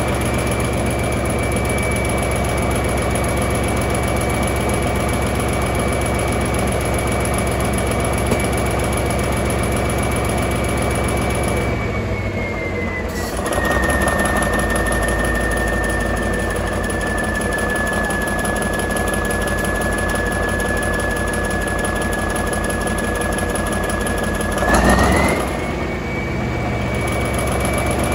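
Caterpillar D397 V12 diesel engine running, with a high whine over the engine note. About twelve seconds in the engine speed drops and the whine falls in pitch; near the end the speed comes back up with a brief louder surge and the whine rises again.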